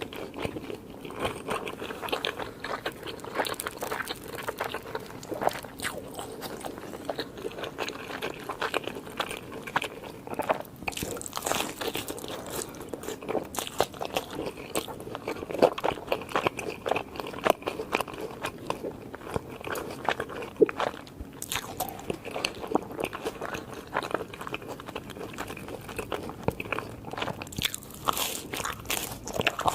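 Close-miked crunchy fast food being bitten and chewed, with a steady run of irregular crunches and wet chewing.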